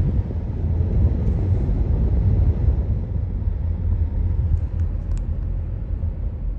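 Car moving along a road, heard from inside: a steady low rumble of tyre and road noise.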